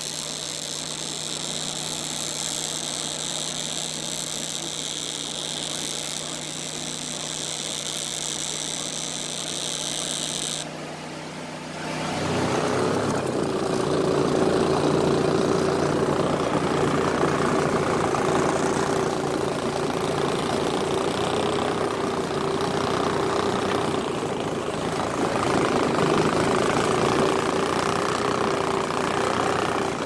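Electric welding arc hissing steadily for about ten seconds, then cutting off. About two seconds later an outboard motor runs at speed on a small boat, holding a steady pitch, with water rushing past the hull.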